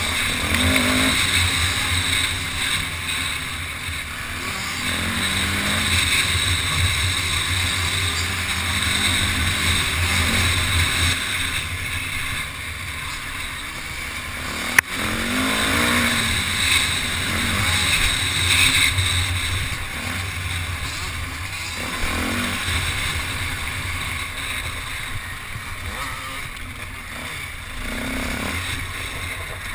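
Dirt bike engine revving up and down as it rides a trail, the pitch rising and falling every few seconds, with one sharp knock about halfway through.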